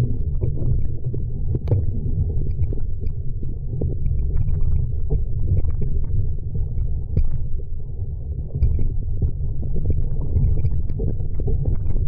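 Wind buffeting the microphone as a steady low rumble, with small scattered knocks and splashes of choppy water against a Sunfish sailboat's hull.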